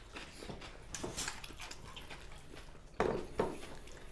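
Eating with the hands from ceramic plates: soft scattered clicks and rustles of fingers and food against the plates, with two louder clinks close together about three seconds in.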